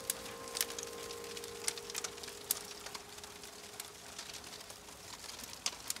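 Fire crackling with sparse, irregular sharp pops over a faint steady hiss, while the last held notes of background music fade out in the first two or three seconds.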